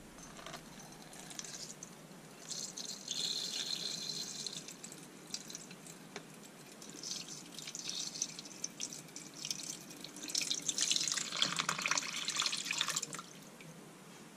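Water poured from a plastic jug into a plastic tub, splashing onto a rusty metal plate as the electrolysis bath is filled. The pour comes in three spells, the longest and loudest about ten seconds in.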